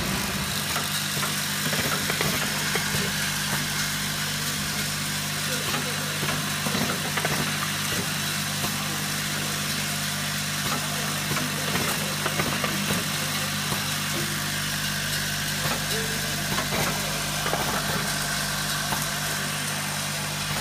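Steady hum and hiss of automated factory machinery on an aluminum-tube laser marking line, with scattered light clicks and ticks from the tube-handling mechanisms.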